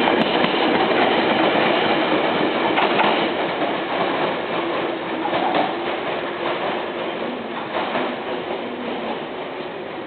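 Izu Kyu 8000 series electric train (ex-Tokyu) running on the rails, wheels clattering over the track joints, its sound slowly fading.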